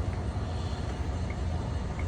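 Steady low hum of a running motor, with an even background hiss.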